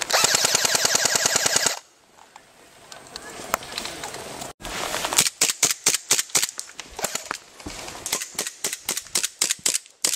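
Airsoft gun firing a full-auto burst of about a second and a half. After a pause of about three seconds, an airsoft pistol fires a long string of rapid single shots, several a second.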